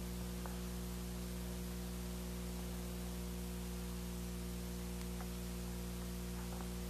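Steady electrical mains hum with hiss from a sound system, its microphone lying unused, with a few faint clicks.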